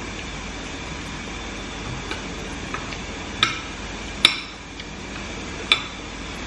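Spoon clinking against ceramic plates and bowls while eating: a few short, ringing clinks, three of them sharp and one in the middle loudest, over a steady background hiss.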